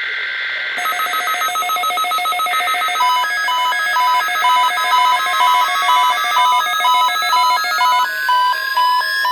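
Electronic tones of a NOAA Weather Radio required weekly test. A warbling digital data tone near 2 kHz starts it, then from about a second in comes a rapid, repeating multi-tone beeping, with a tone sliding steadily upward in pitch from about halfway.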